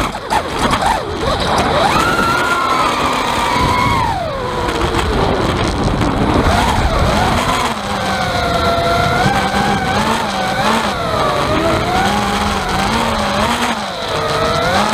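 Quadcopter's EMAX 2205 2300kv brushless motors and 5-inch props whining, the pitch rising and falling with throttle, heard through the onboard camera's microphone. A rattle runs with it, which the owner suspects is the camera's microphone having come loose inside the housing.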